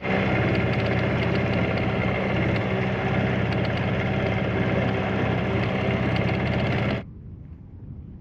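Small outboard motor on an inflatable boat running steadily under way at an even pitch, then stopping abruptly about seven seconds in.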